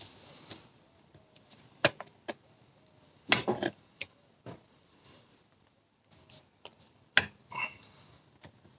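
Steel pliers clicking and clacking against a screw stuck in a car tyre as they grip, slip and twist at its head: a few sharp clicks, a quick cluster about three seconds in and another sharp click near the end, after a brief rustle at the start.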